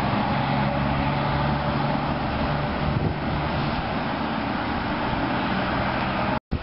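Highway traffic: a car going by over a steady low engine drone, which thins a little after the middle. The sound cuts out abruptly for a moment near the end.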